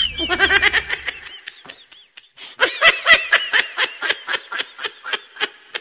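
Laughter: a quick run of 'ha-ha' pulses, a short pause, then a longer, louder run of about five laughs a second.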